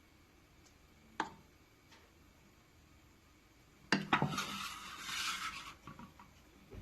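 Kitchen utensils on dishes: a single clink about a second in, then a few knocks and about a second and a half of scraping.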